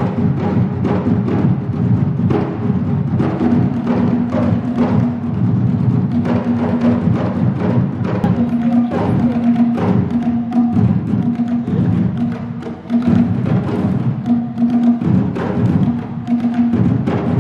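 Live traditional Kenyan drumming on several hand drums, a fast, steady rhythm of strokes with a held low note that comes and goes.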